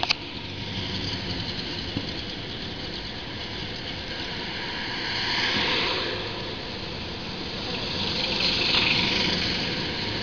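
Street traffic: steady vehicle engine and road noise, swelling twice, about five and a half and nine seconds in. Two sharp clicks at the very start.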